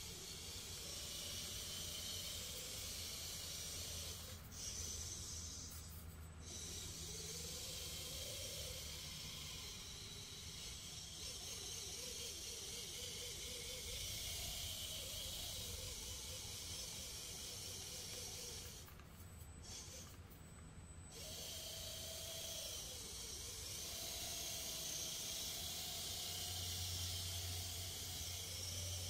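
Steady static hiss, like the audio of an analog FPV video monitor, with a low hum beneath it and a faint whine that wavers in pitch. The hiss cuts out briefly twice early on and again for about two seconds around twenty seconds in.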